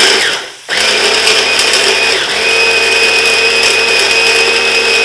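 Electric hand blender with a WMF chopper bowl, chopping dried chanterelles: a short pulse, a brief stop, then a steady run of the motor at an even, high pitch.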